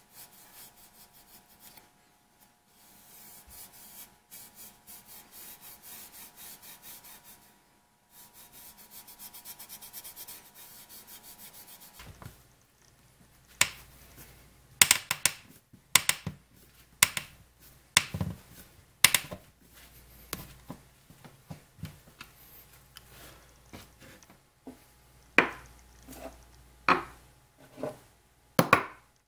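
A cloth rubbing oil finish onto a cherry board in quick repeated strokes. After a cut comes a series of sharp clicks and knocks, about one a second, as screws are driven by hand into the shelf's wooden supports.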